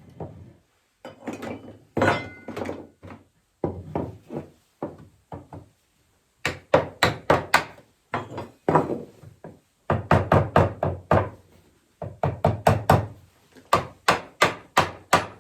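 Hammer striking wood in quick runs of blows, about four a second, with short pauses between the runs.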